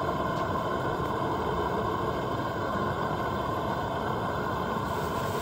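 Outdoor fish cooker running with pieces of battered fish frying in its hot grease: a steady, low rushing noise that does not change.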